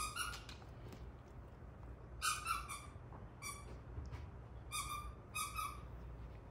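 A husky whining in short, high cries, about half a dozen, coming in small clusters.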